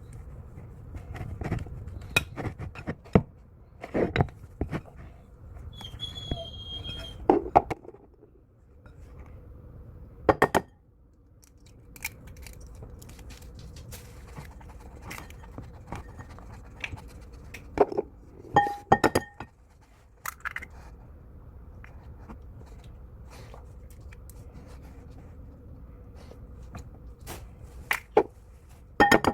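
Kitchen utensils and dishes clinking and knocking during food preparation: scattered separate clicks and thunks, with a short high tone about six to seven seconds in.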